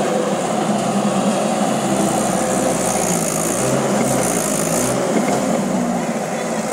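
Mahindra 415 XP tractor's diesel engine running loud and steady, its pitch shifting slightly, as it works to pull a trolley that is stuck.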